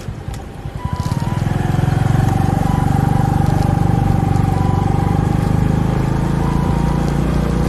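Suzuki Smash underbone motorcycle's single-cylinder four-stroke engine running under way, picking up revs about one to two seconds in and then holding steady.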